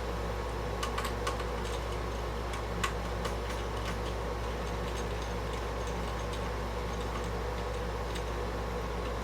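Scattered light clicks and taps of hands handling the parts of an old AT desktop computer as it is disassembled, over a steady low hum.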